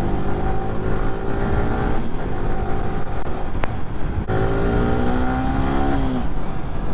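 Yamaha R15 sport motorcycle engine pulling through the gears as it is ridden, with wind rush. The pitch climbs steadily, drops back about four seconds in at an upshift, climbs again, and falls away near the end as the throttle is closed.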